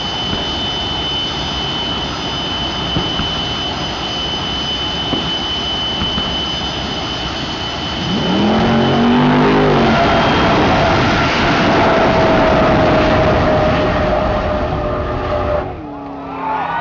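Jet truck's turbine engine running with a steady roar and a high, even whine while it shoots flames. About eight seconds in the sound gets louder as the race launches: a race car engine revs in quick rising sweeps under the jet's roar, then a long, slowly falling tone carries on until the sound drops off suddenly near the end.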